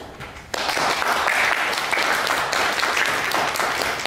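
Audience applauding, starting suddenly about half a second in and clapping steadily throughout.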